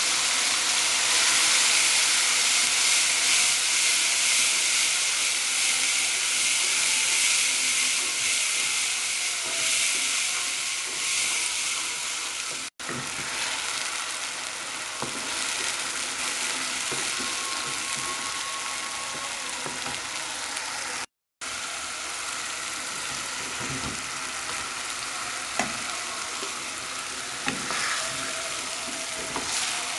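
Ground green chili paste sizzling in hot oil in a frying pan, a steady hiss that eases a little over time, with a spatula stirring through it. A few short knocks of the spatula against the pan come near the end, and the sound cuts out briefly twice.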